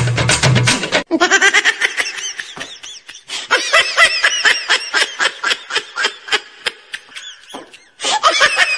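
Laughter: a quick run of short, high-pitched 'ha' pulses, each rising and falling in pitch. It starts abruptly about a second in and stops abruptly near the end.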